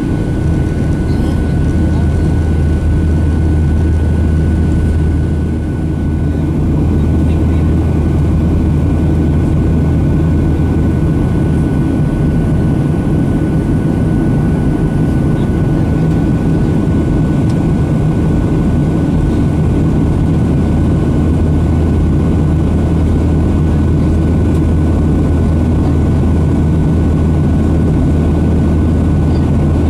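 Steady cabin drone of a Boeing 737-800 in flight: the CFM56-7B engines and airflow, with a deep hum and a thin steady whine over it.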